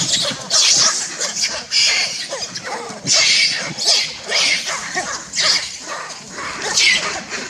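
A macaque screaming shrilly over and over, about once a second, as it is grabbed and scuffles with another macaque.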